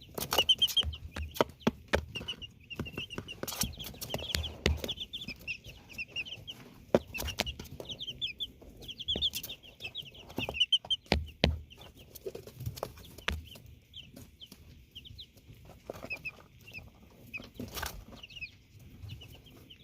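Chicks peeping in quick runs of short, high-pitched chirps, with scattered sharp clicks and taps throughout.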